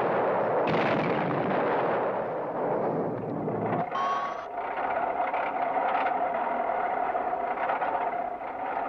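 Crashing, crumbling rumble of a brick wall being smashed through, a cartoon sound effect that lasts about four seconds. After that a steady hum with one held tone carries on.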